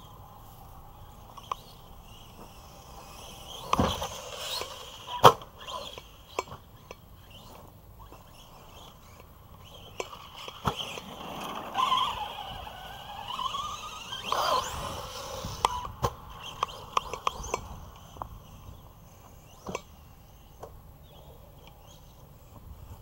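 Arrma Big Rock V3 RC monster truck bashing on a dirt yard track: its electric motor whines, rising and falling as the throttle is worked mid-way through, between sharp knocks of the truck landing and hitting the ground, the loudest about five seconds in.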